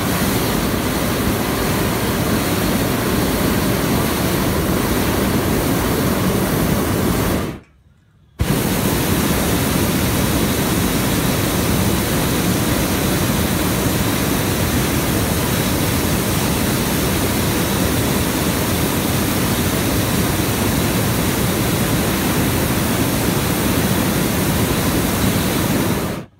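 Hot-air balloon's propane burner firing in two long blasts: about seven and a half seconds, a break of under a second, then about eighteen seconds more. Each blast starts and cuts off sharply.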